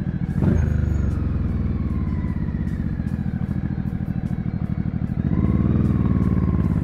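JS700 motorcycle engine running at low speed in slow traffic, with a quick rise in revs about half a second in and the engine pulling harder and louder from about five seconds in.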